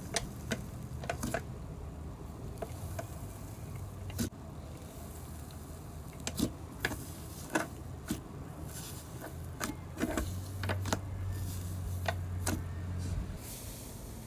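Slime being handled and pressed by hand, giving irregular sharp clicks and pops over a low steady hum.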